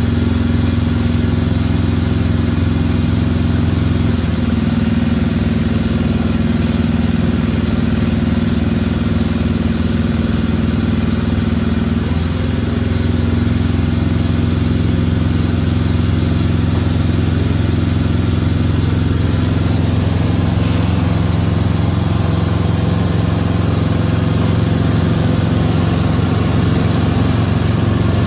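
A small engine running steadily at an even speed without pause.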